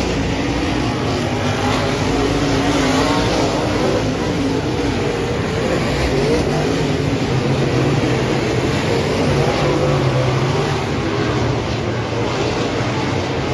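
Several dirt-track race cars' engines running together as the cars circle the oval, the engine notes rising and falling.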